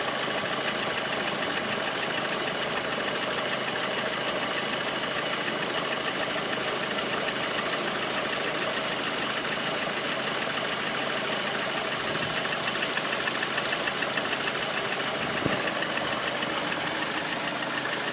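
Lada Priora's VAZ-21126 1.6-litre 16-valve engine idling with a steady knocking, diesel-like clatter, running 'like a tractor'. It is piston knock, for which a service prescribed replacing the piston group.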